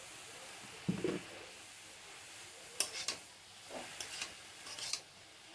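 Metal spatula stirring grated beetroot in a metal kadai, scraping against the pan several times in short strokes, over a faint steady sizzle of the beetroot frying in oil.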